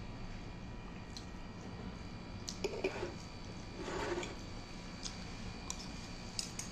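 Light clicks and taps of tableware, likely cutlery on plates or glass, over a steady hum. Two short louder scraping noises come about three and four seconds in.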